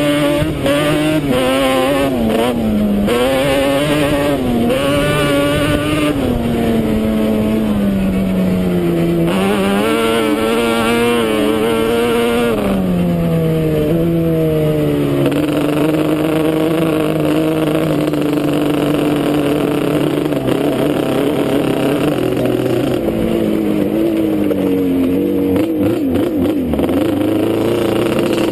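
Yamaha Banshee ATV's twin-cylinder two-stroke engine under way, its revs rising and falling with the throttle through the first dozen seconds, then holding a fairly steady pitch for the rest of the run.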